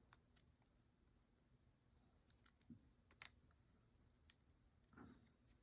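Faint, sparse clicks of small metal folding-knife parts being handled and fitted by hand, with several clicks bunched together in the middle and one more a second later.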